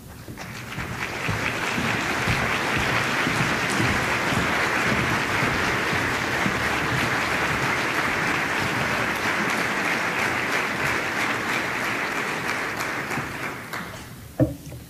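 Large audience applauding, building up over the first two seconds, holding steady, then dying away near the end.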